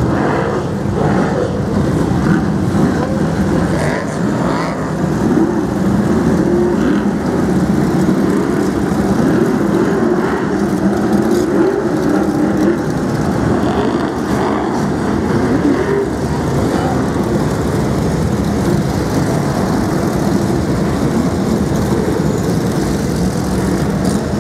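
V8 engines of a pack of BriSCA F1 stock cars racing round a shale oval, a dense, continuous drone of many engines at once with surges as cars pass close by.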